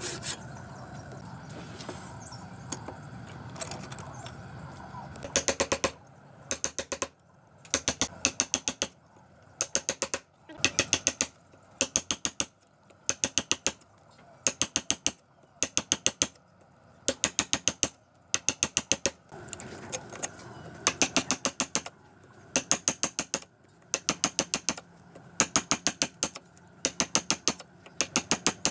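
Steel chisel in a wooden beam struck with quick light hammer taps, in bursts of about ten rapid clicks roughly once a second. The first few seconds are quieter.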